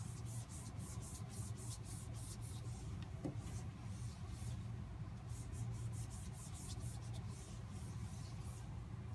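Damp cloth rubbed fast back and forth across a wet-wipe marker menu board to clean off the ink, a quick run of rubbing strokes about five a second that slackens a few seconds in and then picks up again, over a steady low hum.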